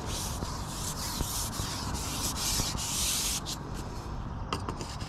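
Fabric rubbing and brushing against the camera's microphone: a rough scraping noise for the first three seconds or so, then a few light knocks.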